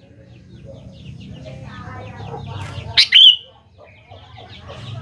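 Sooty-headed bulbul (kutilang) calling: a loud, short, sharp call about three seconds in, over a steady background of busy bird chatter.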